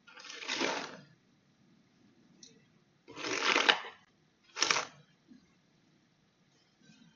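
Three short bursts of rustling handling noise, the first and second each lasting about a second and the third shorter, with faint ticks between them.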